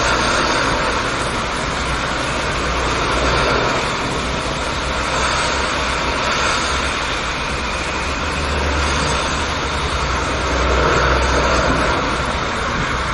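Steady rain falling during a thunderstorm, with a low rumble underneath that swells and eases several times.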